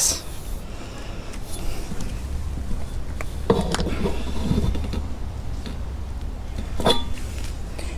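Low steady rumble with a couple of sharp knocks, one about three and a half seconds in and one near the end, from someone climbing down grated dock steps while gripping a metal handrail.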